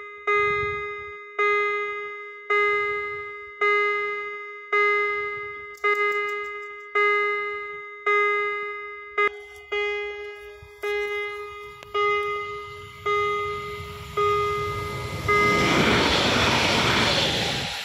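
Railway level-crossing warning bell ringing steadily, one ringing strike about every second as the barriers are lowered. Near the end an electric multiple-unit train passes close by, its loud rushing noise drowning out the bell.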